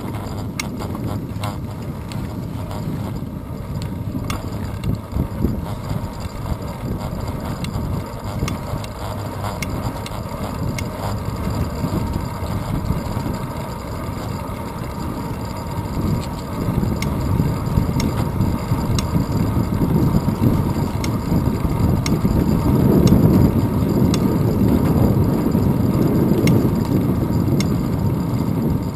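Wind buffeting a handlebar-mounted GoPro Hero 2 on a moving road bicycle, mixed with tyre and road rumble and small rattles over bumps. It grows louder in the second half.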